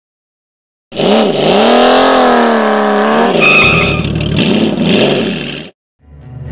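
Engine revving sound effect, its pitch swinging up and down, with a brief high squeal partway through; it begins about a second in and cuts off suddenly. Music starts just before the end.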